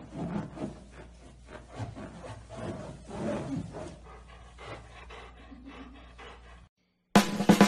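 Irregular low groaning and rubbing sounds from a golden retriever pressing and rubbing its head on a large latex balloon. Near the end they cut off abruptly and loud music with a drum beat starts.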